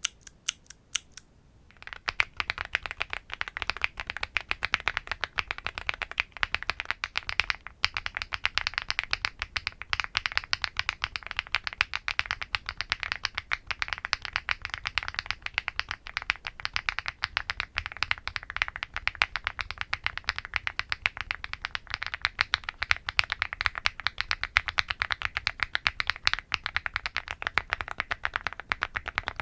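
Fast typing on a Weikav Lucky65 mechanical keyboard: a few separate key clicks, then from about two seconds in a dense, continuous patter of key presses. The switches change every five seconds, running through JWK Wob, HMX Woblab Violet, HMX Pebble, HMX Hibiscus, KTT Coconut Latte and JWK Vertex V1.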